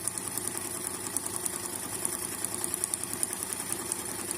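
Brother Riviera 110 sewing machine running steadily and stitching a test seam, a rapid, even clatter of needle strokes over the motor's hum. This is a test of the stitch after the thread tension wheel and hook were adjusted, and the stitch comes out properly tensioned.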